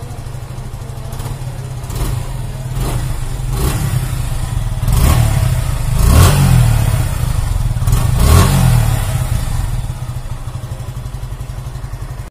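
Suzuki Gixxer SF 150's single-cylinder engine idling, heard at the exhaust muffler, with about six quick throttle blips that rise and fall in pitch. The biggest blips come about six and eight seconds in.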